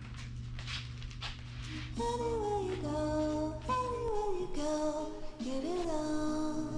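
Background music: a song whose sung vocal melody comes in about two seconds in, over a steady low accompaniment.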